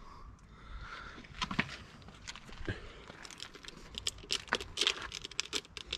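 Quiet hand-work noises at an ATV's oil filter mount: scattered light clicks and taps with a faint rustle of rag and parts being handled, coming more often in the second half.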